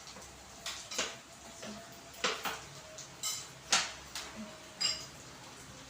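Dishes and cutlery knocking and clinking: about seven separate sharp knocks, two of them ringing briefly like a utensil striking a plate or glass.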